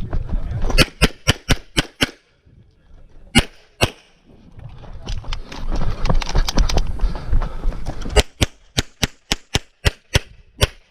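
9mm CZ SP-01 pistol fired rapidly in quick pairs, about twenty shots in bursts separated by short pauses. In the middle there is a stretch of rushing, rustling noise with a few more shots.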